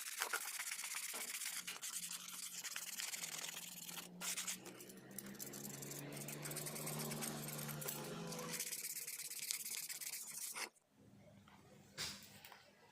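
Rapid abrasive scrubbing on the rusty metal of an 8-inch speaker, as when sanding or brushing off rust, stopping suddenly about eleven seconds in. A low steady hum sits under it in the middle.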